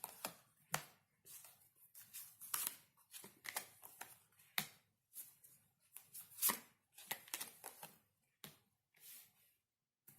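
Tarot cards being shuffled and handled on a table: a run of irregular quick slaps, flicks and riffles, pausing briefly near the end.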